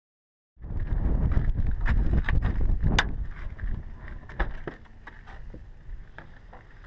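Wind buffeting the camera microphone at the open door of a parked Cessna 172, a rumbling gusty noise with sharp clicks and knocks, starting about half a second in and dying down over the second half.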